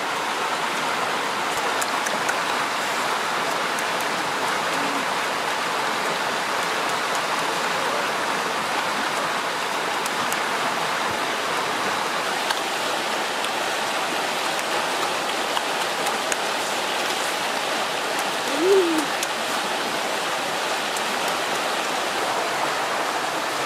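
A steady, even rushing noise, like rain or running water, with one short hummed voice sound about nineteen seconds in.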